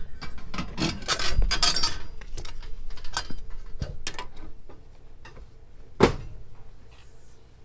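Metal hand tools clicking and clinking against a gas range's brass fittings as a pair of pliers and an adjustable wrench are worked on the regulator fitting, busy at first and then sparser. One sharp, loud metallic knock about six seconds in.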